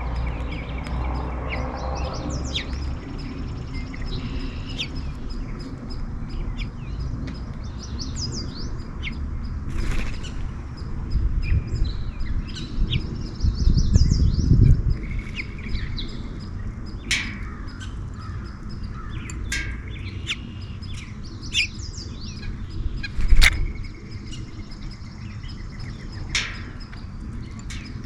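Songbirds chirping and calling, with many short, high chirps overlapping throughout. A few sharp clicks or knocks stand out, the loudest about three-quarters of the way in, and a low rumble swells briefly near the middle.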